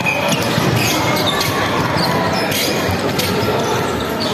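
Indoor court game in a large hall: repeated sharp knocks of a ball and feet on the floor and a few short squeaks over a steady crowd murmur.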